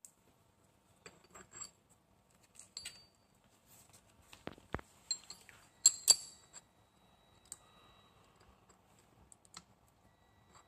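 Small metal parts of a manual nameplate marking machine clicking and clinking as its character wheel and marking head are handled and fitted by hand, with a few short metallic tings; the loudest two clinks come close together about six seconds in.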